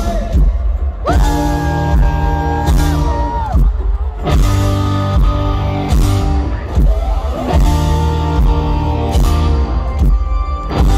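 Live rock band playing an instrumental outro: electric guitars, bass, keyboards and drums hold big sustained chords in phrases of about three seconds, each opened by a drum and cymbal hit.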